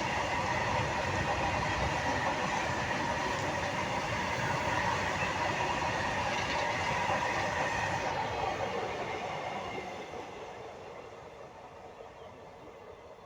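Freight train wagons rolling past on the rails, a steady dense rolling noise with a faint ringing tone over it, which fades away over the last five seconds as the end of the train moves off.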